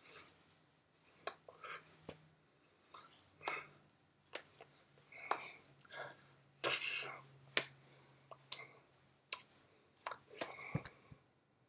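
Soft sharp clicks and taps from a person signing in American Sign Language, hands striking each other and the shirt, mixed with breathy mouth noises and lip sounds from silently mouthing the words. The clicks come irregularly, about one or two a second.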